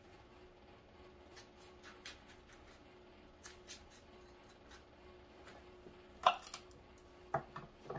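Kitchen knife stripping collard green leaves off their stalks over a wooden cutting board: faint scattered ticks and rustles of blade and leaf, with a few louder sharp clicks near the end.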